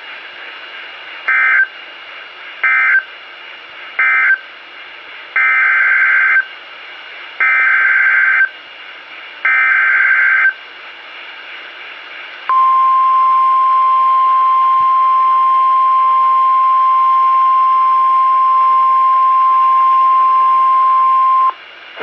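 NOAA Weather Radio heard through a Kaito Voyager Pro weather alert radio's speaker. First come three short SAME end-of-message data bursts, then three longer, buzzy SAME header data bursts about a second each. About twelve seconds in, the steady 1050 Hz warning alarm tone sounds for about nine seconds, announcing a new severe thunderstorm warning.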